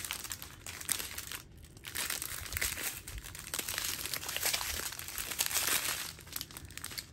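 Small plastic zip-top bags of diamond-painting drills crinkling as they are handled and flipped through, with a short pause about a second and a half in.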